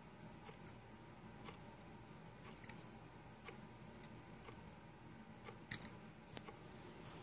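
Faint regular ticking about once a second, with two louder sharp clicks, one a little before the middle and one near the end, from small hard parts or tools being handled on a repair bench.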